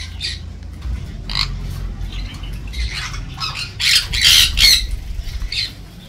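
Parrots in an aviary squawking: a string of short, shrill calls, with the loudest run of several calls about four seconds in.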